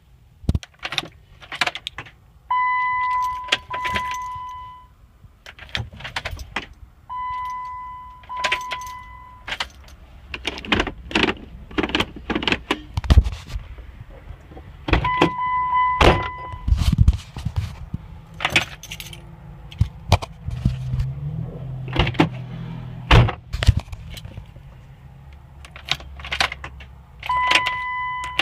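2007 Jeep Wrangler that won't start: a steady warning-chime tone sounds four times, about two seconds each, among many sharp clicks and jangling keys as the ignition is tried, with no engine catching. A low hum comes in about halfway through.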